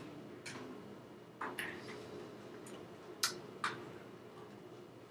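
A handful of short, sharp clicks and taps, unevenly spaced, made by a person while signing, from hands, clothing or mouth.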